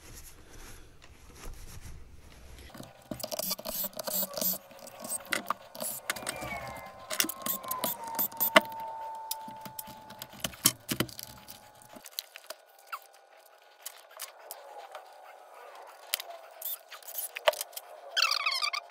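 Small metal clicks and clinks of tools and screws being handled while screws are backed out of the X-Maxx chassis, over a faint whine that slides down in pitch partway through. A busy squeaking starts near the end.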